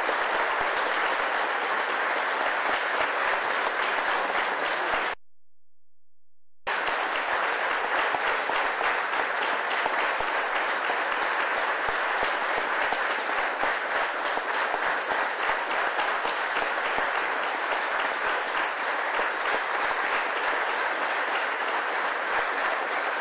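A large audience applauding, many people clapping steadily and densely. The sound cuts out completely for about a second and a half around five seconds in, then the applause resumes unchanged.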